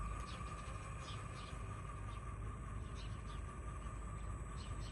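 HobbyPlus Rock Van RC crawler's brushed motor and geartrain running steadily in low gear at a slow crawl, a constant whine.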